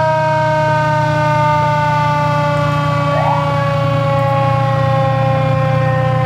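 Fire engine siren sounding a long, steady multi-tone wail that slowly falls in pitch as the truck passes close by, over the low, steady rumble of its engine. About three seconds in, a brief rising whoop is heard from another siren.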